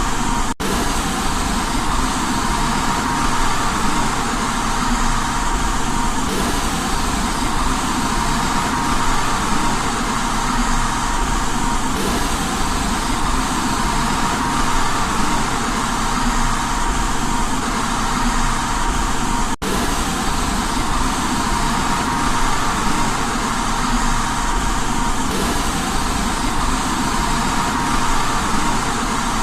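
Steady white noise, an even hiss with a faint steady tone running through it, broken by two very brief dropouts, about half a second in and about twenty seconds in.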